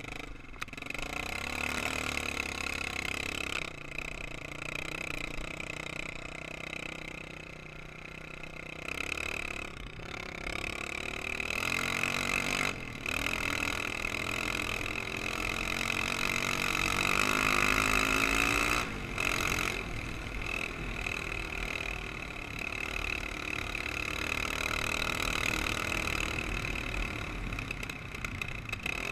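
Sport ATV engine heard from on board under riding, revving up and down with the throttle, the sound dropping briefly several times as the throttle is let off, and the other quads' engines running close by.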